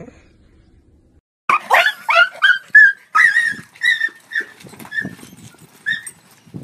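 Rottweiler puppy giving a string of about a dozen short, high-pitched yips and whines, starting about a second and a half in.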